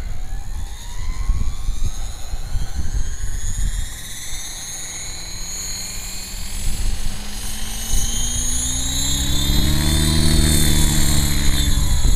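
Radio-controlled helicopter spooling up on the ground: a whine from the main rotor and drivetrain that climbs steadily in pitch and levels off near the end, ready for lift-off.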